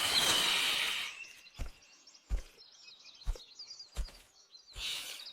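A rushing hiss in the first second, then a string of short dull thumps, with faint bird chirps behind.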